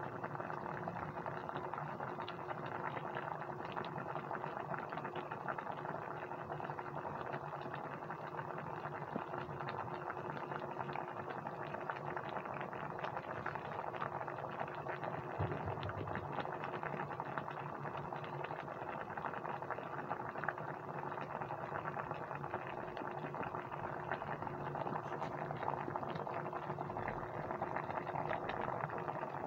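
Soy sauce and calamansi braising liquid boiling in a pan of pork chops, pork liver and onion rings: a steady, dense crackle of small popping bubbles.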